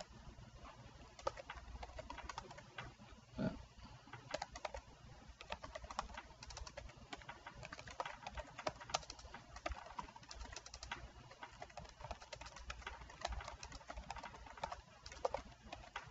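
Computer keyboard typing: quick, irregular key clicks as text is typed. About three and a half seconds in there is one short low sound, the loudest moment.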